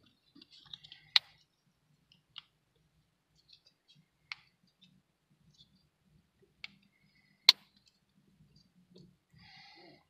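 Sharp plastic clicks from a Mazda 3 smart key fob's cover being pressed and snapped back into place after a battery change. There are about five separate clicks a second or two apart, the loudest about seven and a half seconds in.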